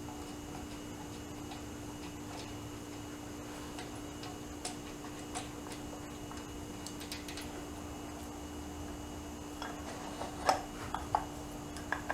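Screwdriver prying and tapping at a torque converter on a small engine's crankshaft: scattered light metallic clicks, with a few sharper taps about ten seconds in, over a steady hum.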